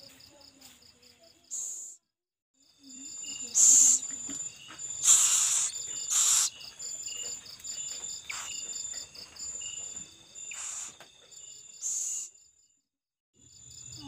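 Steady pulsing chorus of crickets, with about five short, loud hisses from owlets begging to be fed. The sound cuts out briefly twice.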